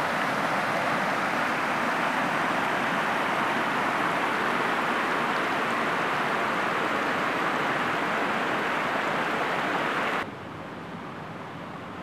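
Creek water rushing over rocks and a small cascade, a steady hiss of flowing water. About ten seconds in it drops suddenly to a much quieter steady hiss.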